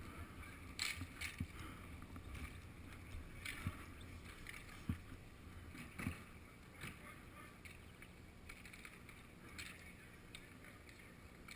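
Low rumble of wind on a helmet-mounted action camera, with scattered faint clicks and knocks from roller hockey play on a concrete rink, more of them in the first half.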